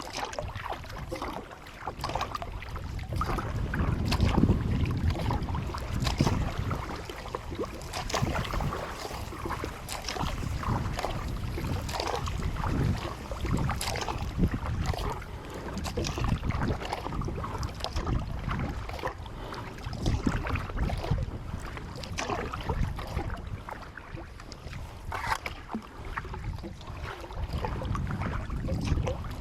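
Kayak paddle strokes splashing and dripping in the water, with wind buffeting the microphone in gusts.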